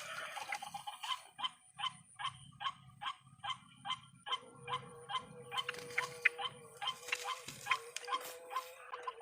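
White-breasted waterhen calling, a run of short repeated notes about two to three a second. A steady tone joins about four seconds in.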